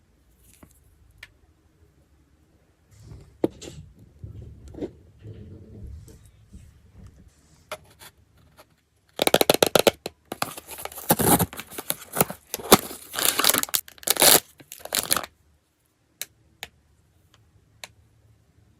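Blind-box packaging being handled and torn open. Soft rustling and small clicks come first, then about six seconds of loud, rapid tearing of the wrapper, which stops suddenly.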